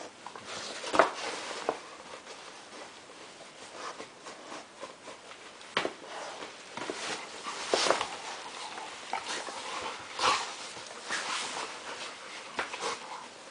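Two dogs tussling in and around a fabric pop-up play tunnel: irregular scuffling, rustling of the tunnel fabric and paws on the floor, with a few sharper knocks scattered through.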